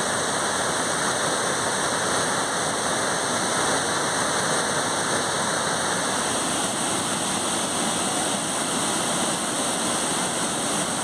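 A waterfall in flood: a heavy volume of water pouring over rock cascades in a steady, even rush.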